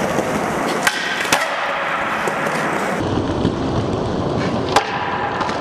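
Skateboard wheels rolling steadily on smooth concrete, with a few sharp clacks of the board, the loudest near the end.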